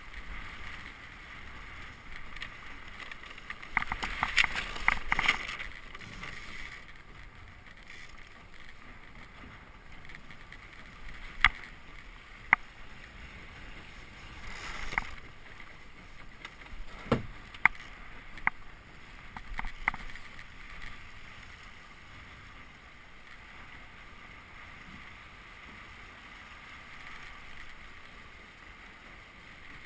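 Water rushing along the hull of a Melges 17 sailing dinghy under way, with a louder splashing surge about four seconds in. A handful of sharp clicks and knocks come from the boat's lines and deck fittings in the middle stretch.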